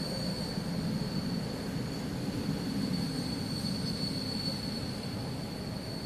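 Freight train of tank cars rolling through a rail yard: wheels rumbling on the rails, with a steady high-pitched wheel squeal held throughout.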